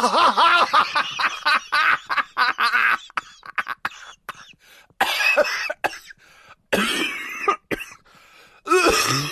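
A person laughing hard: a fast run of ha-ha pulses for about three seconds, then several shorter wheezy bursts of laughter with breaks between them.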